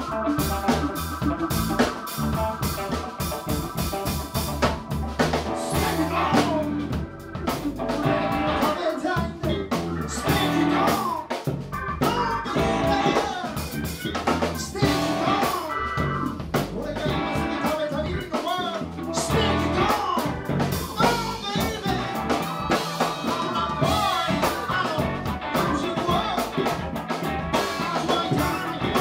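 Live band playing: drum kit, electric bass, keyboard and electric guitars, with a man singing over them from about six seconds in.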